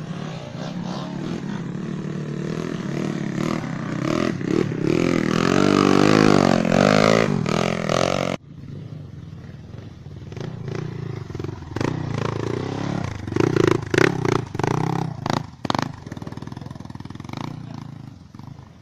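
Trail dirt bike engine revving hard on a hill climb, its pitch rising and falling. The sound breaks off abruptly a little before halfway, then the engine is revved in short, uneven bursts.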